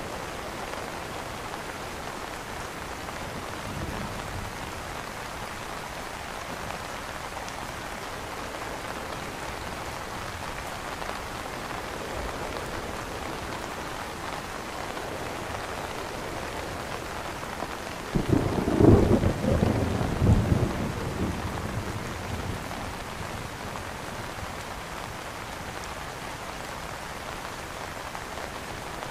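Steady rain pattering on an umbrella, with a rumble of thunder that breaks in suddenly about two-thirds of the way through, swells twice and dies away over a few seconds.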